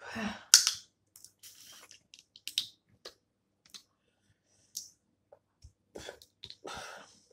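Close-up eating of snow crab legs: shells cracking and clicking as the meat is picked out, with chewing, in irregular short sharp clicks and a few longer noisy bursts, the loudest at the very start.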